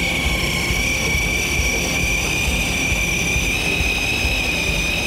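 Shimano Beast Master 2000 electric fishing reel winding in line with a steady high whine that edges slightly higher, hauling up a hooked fish. A low rumble runs underneath.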